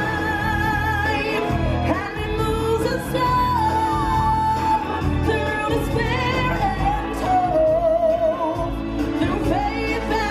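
Live musical stage show: singers holding long notes with vibrato over a full band accompaniment.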